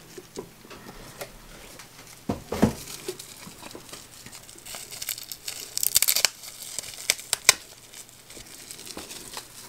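Small clear plastic bag crinkling and rustling as it is handled and opened, with scattered sharp crackles, the loudest near the end. A knock about two and a half seconds in as a china saucer is set down.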